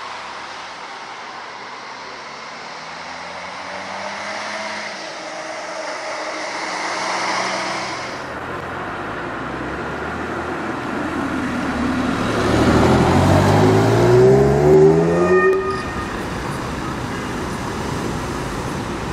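Street traffic in several short clips: vehicles driving past, with one engine accelerating, its pitch rising steadily, about two-thirds of the way through as the loudest sound.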